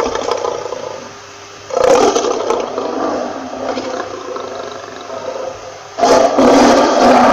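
Lion roaring, a rough, loud sound that comes in spells, starting suddenly about two seconds in and again near the end.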